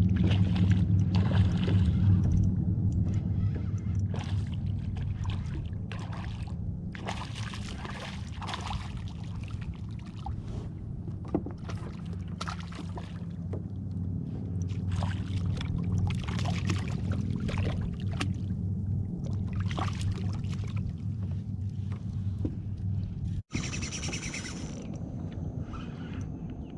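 Boat motor running steadily, a low hum, with scattered knocks on the boat. The hum stops abruptly near the end.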